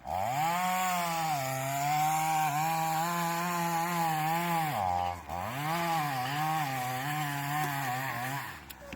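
Chainsaw revved up and run at high speed, cutting into a tree. The engine note dips once about five seconds in, picks up again, and drops away near the end.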